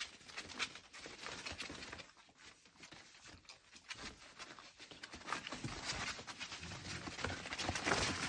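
Lancashire Heeler mother and puppies scrabbling and padding about on a plastic tarp and bedding sheets: irregular rustling and clicking of paws, busier and louder in the second half.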